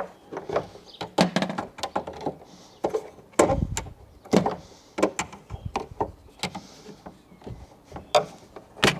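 Plastic clips on a Ford Fiesta ST mk8's rear roof spoiler clicking and knocking as the spoiler is worked loose from the tailgate by hand. An irregular run of sharp clicks and knocks, the loudest a thump about three and a half seconds in.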